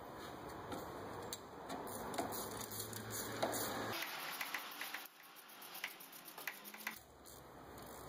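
Scattered light clicks and ticks from a long socket extension being worked on a spark plug in the engine's plug well.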